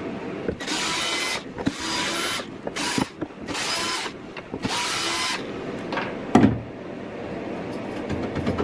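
Cordless drill-driver whirring in five short bursts as it drives out the screws holding a motor mount down, followed by a single loud thump about 6.4 s in and a few light handling clicks.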